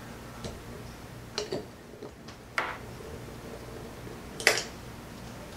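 A few scattered light clicks and taps of a crescent wrench and small metal reel parts as the line guide pawl cap is loosened and removed from a baitcasting reel, the sharpest click near the end.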